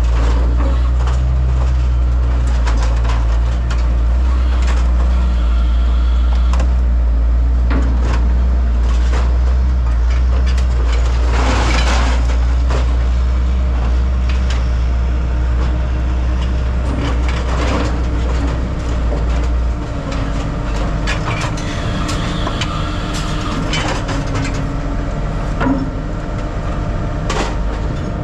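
Heavy truck engine running steadily, with scattered metal knocks and clanks and a short burst of noise about twelve seconds in; the engine's hum changes about twenty seconds in.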